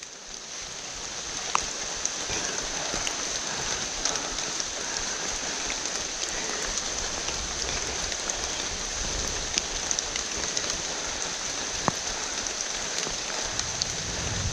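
Steady rain falling on forest foliage, an even hiss that swells over the first couple of seconds, with a few sharp drop ticks and a steady high-pitched drone above it.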